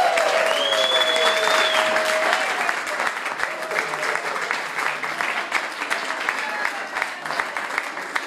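Audience applauding after a group singalong, over the last held sung note and a high whoop in the first two seconds; the clapping then slowly thins out.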